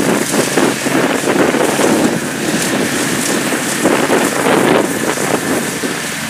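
Kubota DC70 combine harvester running as it cuts and threshes rice, its engine and machinery largely covered by gusty wind buffeting on the microphone, heard as a rough, uneven rushing noise.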